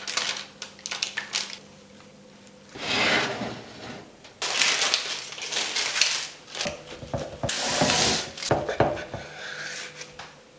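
Egg and vegetable batter poured from a bowl into a parchment-lined baking tray, with wet splats and small clicks in the first second or so. Then baking parchment crinkles and rustles in several loud bursts as the baked omelette is handled on it.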